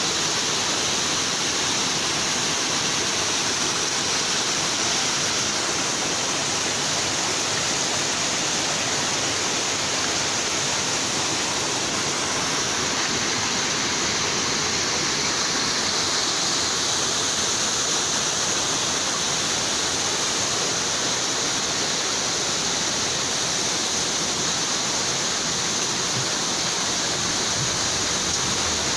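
Steady rush of water from a mountain stream's waterfalls cascading over rocks.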